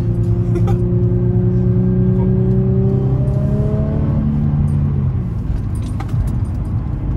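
Infiniti G35's naturally aspirated VQ35DE V6 heard from inside the cabin, pulling under acceleration with its pitch climbing slowly. About five seconds in the engine note drops away and the engine runs quieter for the last couple of seconds.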